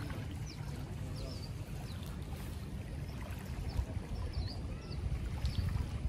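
Wind rumbling on the microphone and small waves lapping at a stone shoreline, with short high bird chirps coming about once a second.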